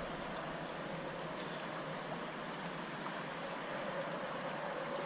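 Small stream flowing: a steady, even rush of water, with a faint steady hum underneath.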